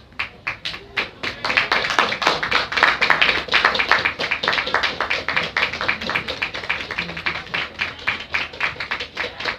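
Spectators clapping close to the microphone, a quick run of sharp claps that starts suddenly and grows fuller about a second and a half in.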